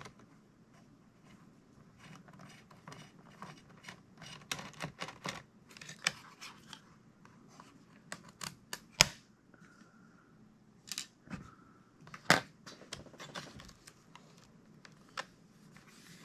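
Small clicks and scrapes of a precision screwdriver backing the Phillips shoulder screws out from under the flap of a Dell Precision 5540 laptop's metal bottom cover, with a few sharper knocks as tools and screws are handled on the desk.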